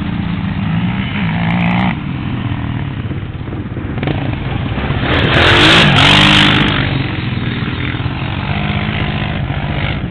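Sport ATV engines revving up and down as the quads climb a steep dirt hill. One passes close by about five seconds in and is loudest there for a second or two.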